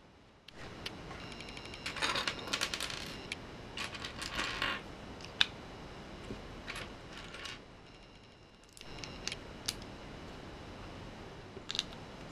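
Small plastic Lego pieces clattering and clicking as they are handled and pressed together, with a dense rattle of pieces about two to five seconds in, then scattered single clicks.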